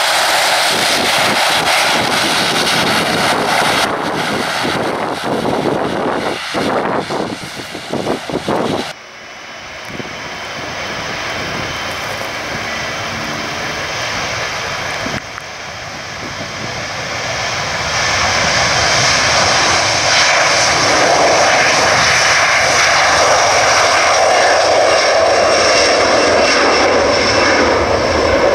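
A turboprop airliner's engines running close by, with a fluttering beat, until a cut about a third of the way in. A Boeing 737's jet engines then build to a loud steady roar with a high whine.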